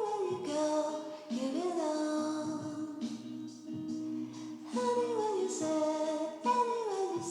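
Background music with a melodic, sung or hummed vocal line.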